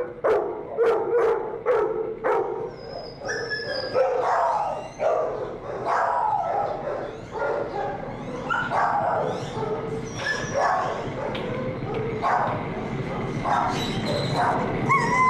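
Several dogs barking and yelping over one another in shelter kennels, a continuous overlapping chorus of short barks and high yelps.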